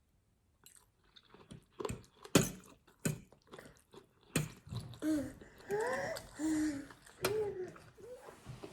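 A person eating: a run of sharp clicks and crunches while chewing, then short voiced sounds that glide up and down in pitch, murmured between mouthfuls.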